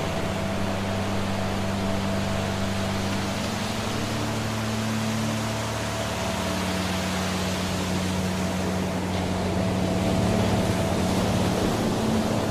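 Steady rush of waterfall water, with a soft sustained musical drone underneath whose low tones shift every few seconds.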